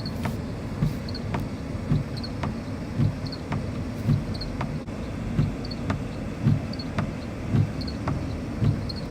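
Windshield wipers sweeping snow from a car windshield, seen from inside the cabin: a low thump at each stroke and a short squeak about once a second, over the steady hum of the car driving.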